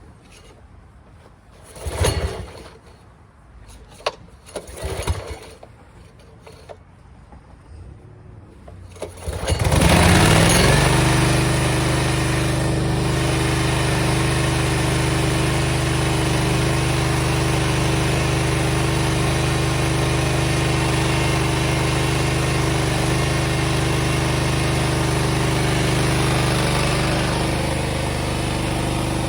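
A few short knocks and clanks, then, about nine seconds in, a small petrol engine starts, revs briefly and settles into a steady run.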